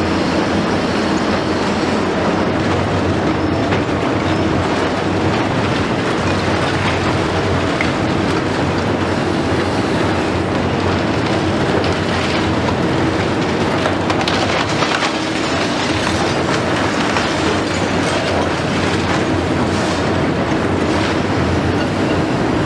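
Liebherr 954 long-front demolition excavator at work: its six-cylinder diesel runs steadily under load, with scattered cracking and knocking of concrete as the tool breaks into the building and rubble falls.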